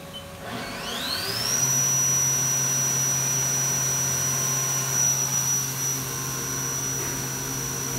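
Haas VF-4 vertical machining center's spindle spinning up: a whine climbs in pitch for about a second, then holds steady at speed over a low hum.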